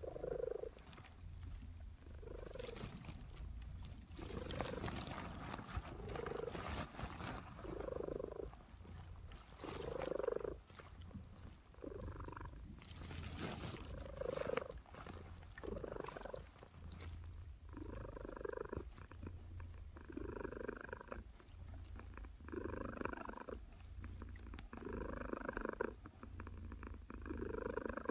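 Domestic cat purring while napping, the purr swelling and fading about every two seconds with each breath in and out.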